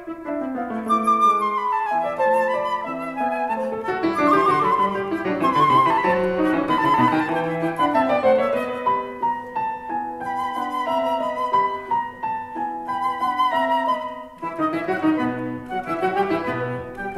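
Instrumental music: a melody of changing notes over held lower notes.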